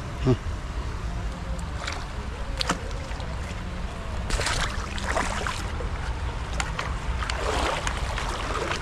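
Shallow river water swishing and splashing as a fishing landing net is swept through it, in bursts about halfway through and again near the end. A steady low rumble of wind on the microphone runs underneath, and a brief human vocal sound comes right at the start.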